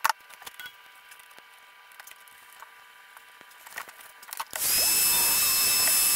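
Light clicks of wires and a connector being handled, then about four and a half seconds in a heat gun switches on and blows steadily with a high whine, heating a solder-seal heat-shrink connector over a wire splice.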